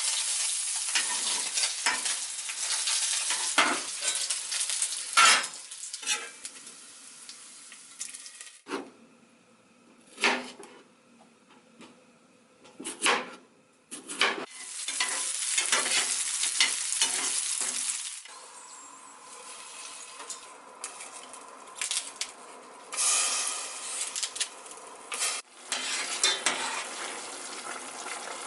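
Food sizzling in a frying pan, stirred with a utensil that clinks and scrapes against the pan. The sizzle comes in loud stretches that cut off suddenly, with quieter clinking in between.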